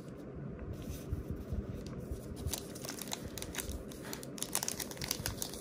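Wrapper of a Topps Stadium Club trading-card pack being crinkled and torn open by hand: a run of small, sharp crackles that gets busier after about two and a half seconds.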